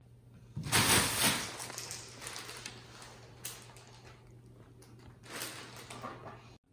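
Clear plastic bag crinkling and rustling as a cat climbs into it and shifts about inside. The rustling is loudest about a second in, with shorter crinkles about three and a half and five and a half seconds in, over a steady low hum.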